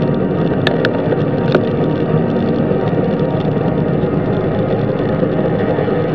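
Steady wind and road noise from a moving road bicycle, picked up by a handlebar-mounted camera, with a few sharp clicks in the first couple of seconds.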